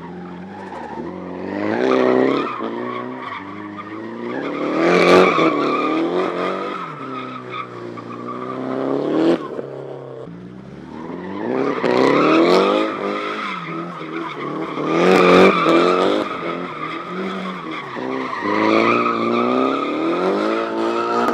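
SR20-engined Nissan Silvia S14 drift car sliding through a corner: the engine revs rise and fall again and again while the rear tyres squeal in two long, steady screeches.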